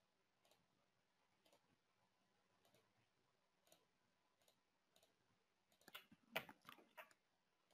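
Near silence broken by faint computer mouse clicks, with a few sharper, louder clicks about six seconds in.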